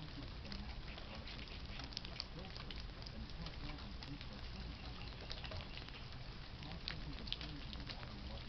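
Light rain pattering and dripping: a steady hiss dotted with many small irregular ticks.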